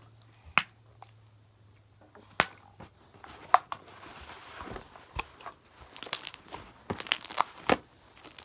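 Sticky slime being stretched and squeezed by hand, giving a run of sharp clicks, pops and crackles that come thicker near the end.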